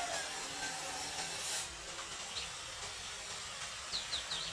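Faint steady hiss of an approaching EMU electric local train on the rails, with a few short bird chirps near the end.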